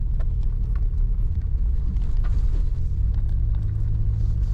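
Suzuki Jimny (JB23) driving, a steady low engine and road rumble heard from inside the cabin, with a few faint ticks.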